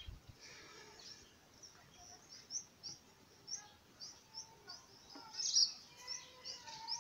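Small birds chirping in the background: short high chirps repeated every half second or so, with a louder flurry of chirping about five and a half seconds in.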